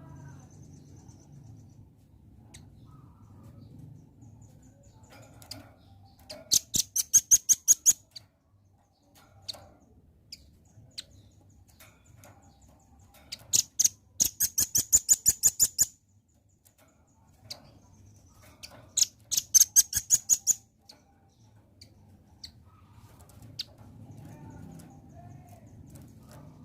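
Velvet-fronted nuthatch (red-billed nuthatch) calling: three bouts of rapid, sharp, high-pitched chirps, about seven notes a second, with a few single faint chirps between them.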